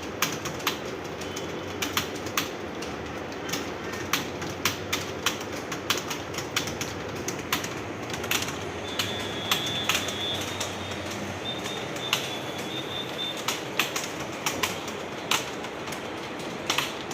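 Several people typing fast on computer keyboards: a dense, irregular patter of key clicks over a steady background noise.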